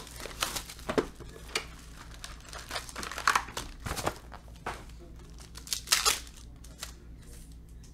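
Foil wrappers of Totally Certified basketball card packs and the box's plastic wrap crinkling and tearing in irregular rustles as the box is opened and its packs handled and torn open.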